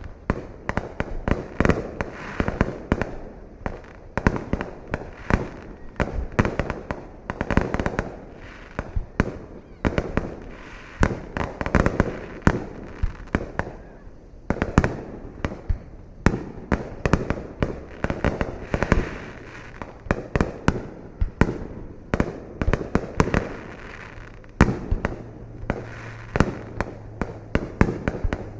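Fireworks display: a dense, unbroken run of sharp bangs and booms, several a second.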